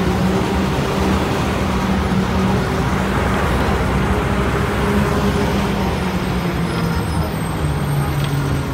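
Bus engine running steadily at low revs as the bus creeps along in street traffic, heard from on board, with the noise of the surrounding traffic around it.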